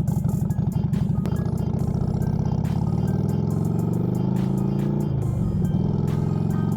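Harley-Davidson Sportster 48's air-cooled V-twin engine under way, its pitch rising steadily as the bike accelerates, then dropping briefly about five seconds in at a gear change before running steady again.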